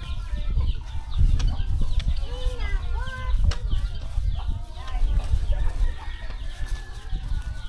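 Chickens clucking and calling in short repeated calls, with one longer held call near the end, over a steady low rumble.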